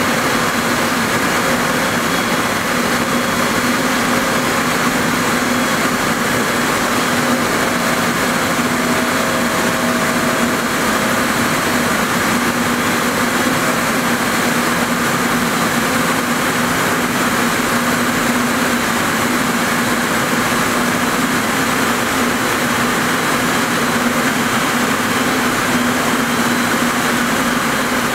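Steady, loud din of many Rieter G32 ring spinning frames with compact spinning units running, a constant hum under an even hiss.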